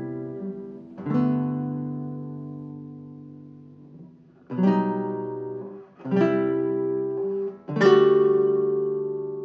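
Classical guitar ensemble playing four full chords. Each is struck together and left to ring and fade. The last chord, near the end, is the loudest.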